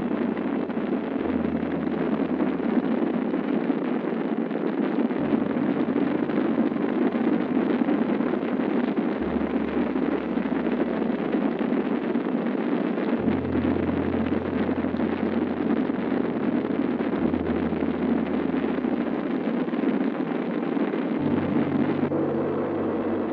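Space Shuttle rocket launch at liftoff: the main engines and solid rocket boosters firing, heard as a steady, loud, dense rushing noise. Low sustained background-music notes sit underneath, changing about every four seconds.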